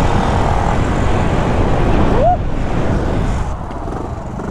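Wind buffeting the microphone of a camera on a moving motorcycle, with the motorcycle's engine running underneath. A short rising tone sounds about halfway through.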